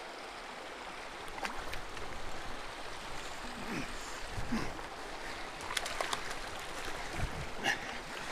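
Shallow creek running over a rocky streambed: a steady rush of water, with a few light clicks scattered through.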